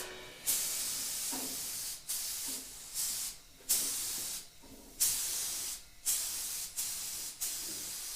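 Spray gun hissing in a series of short bursts, roughly one a second, as the trigger is pulled and released while reactive primer is sprayed onto bare car doors.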